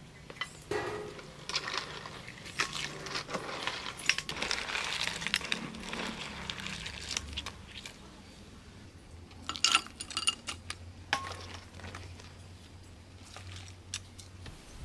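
Cooking sounds at a large steaming soup pot: scattered metallic clinks and knocks of a ladle and pot, with a cluster of sharper clinks about ten seconds in.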